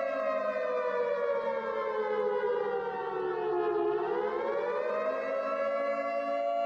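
Civil defence siren wailing: a steady two-note siren tone slides down in pitch over about four seconds, then climbs back up and holds steady again.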